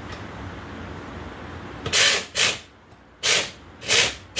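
Handheld pneumatic air wrench triggered in four short bursts, each a brief hissing whir about a third of a second long, starting about halfway through, as it runs a bolt into a golf cart's front suspension.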